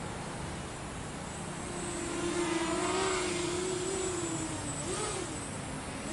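Eachine Falcon 250 quadcopter's brushless motors and propellers whining in flight. The buzz comes in about two seconds in and is loudest in the middle, and near the end its pitch dips and rises with the throttle.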